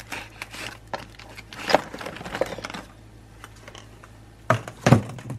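Small kitchen items clicking, clattering and rustling as someone rummages through them, with a busy run of handling noises about two seconds in and two heavier thumps near the end.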